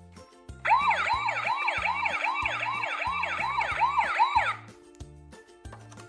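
Electronic siren of a toy emergency vehicle: a fast up-and-down wail, about two and a half sweeps a second, starting about a second in and stopping a little over a second before the end, over background music with low bass notes.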